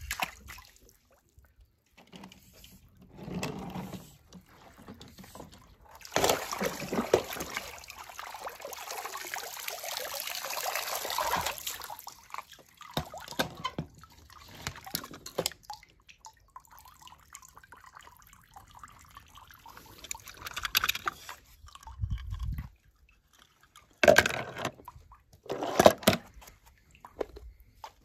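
Swimming-pool water splashing and pouring as a pool skimmer net is moved through the water. Near the end come two short, sharp clatters.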